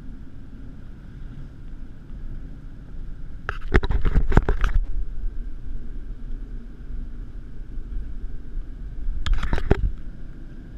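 Steady road and engine rumble heard inside a moving vehicle's cabin, broken by two short bursts of clattering knocks, one about four seconds in and a shorter one near the end.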